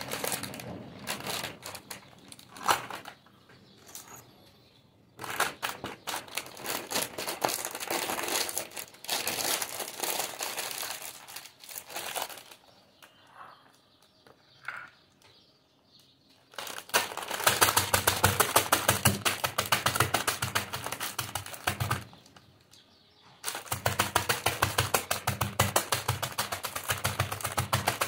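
A packet of Kurkure snacks crinkling as it is handled, then pounded on the counter with a metal pestle in rapid strikes, several a second, crushing the crunchy snacks inside. The pounding comes in two long runs with a short break between them in the second half.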